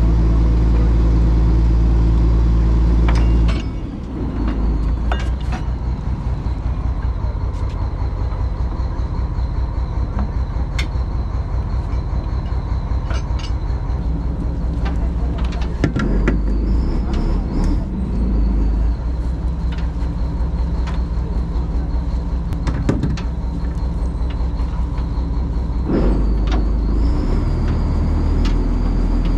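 Fishing boat's inboard engine running with a steady low drone whose pitch shifts a few times, about four seconds in and again later, with scattered knocks and clatter.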